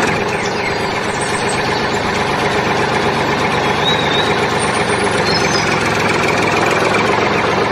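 A steady engine-like running noise, even and unbroken, with no clear rhythm or change in pitch.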